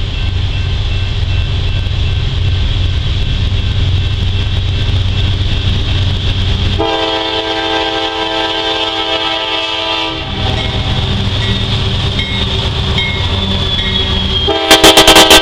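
Diesel freight locomotives approaching with a steady low engine rumble. Their horn sounds a chord of several notes for about three seconds, starting about seven seconds in. Near the end it sounds again, very loud and distorted, as the lead locomotive passes close by.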